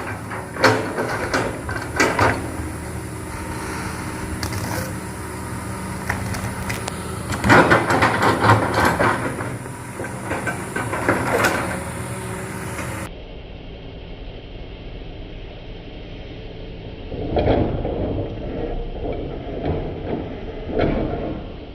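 Excavator's diesel engine running with several louder surges as it works under load, with scattered knocks and clanks. About two-thirds of the way through the sound changes abruptly to a duller, more muffled recording of the machine still working.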